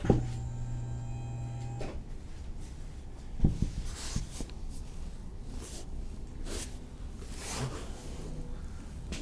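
Thoracic spine adjustment on a chiropractic table: a sharp crack right at the start, followed by a steady hum for about two seconds. A louder sharp crack comes about three and a half seconds in, then light clicks and rustling of body and cloth on the table.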